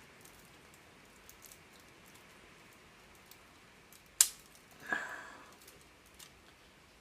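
Plastic Lego-built gun being handled: one sharp click about four seconds in, then a short creak, with a few faint small clicks.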